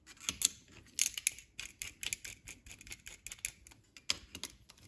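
Vise-Grip locking pliers clicking and tapping against the steel differential case and shaft pin as they are set and clamped on: an irregular string of sharp metallic clicks.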